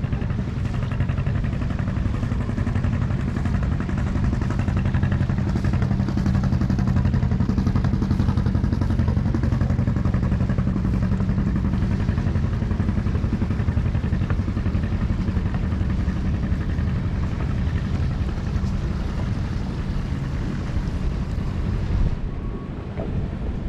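Small fishing boat's engine running steadily under way, a low even hum over wind and water noise; it eases off and quietens near the end.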